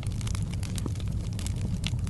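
Wood fire crackling in a fireplace, with irregular sharp pops and snaps over a steady low rumble.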